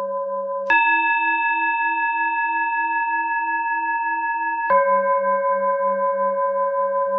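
Tibetan singing-bowl tones held steadily: a low tone shifts abruptly to a higher tone about a second in, which sounds for four seconds before switching back to the low tone. The high tone cues a four-second in-breath and the low tone a six-second out-breath.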